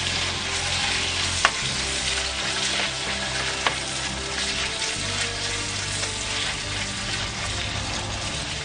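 Chicken strips frying in oil and butter in a wok with a light, steady sizzle as they are stirred with a spatula. The spatula knocks sharply against the pan twice. The cook blames the weak sizzle on an aging electric stove element.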